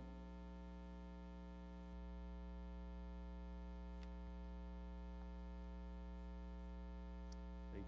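Steady electrical mains hum with a buzzy edge, getting slightly louder about two seconds in, with a faint click or two.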